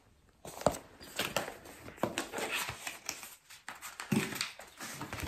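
Rustling, crinkling and light knocks of a cardboard stationery box and paper being handled as the box is opened and its contents taken out.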